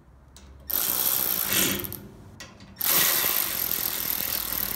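Cordless electric ratchet running in two bursts, the first about a second long and the second about two seconds, as it drives in the bolts that fasten the trunnion to a bandsaw.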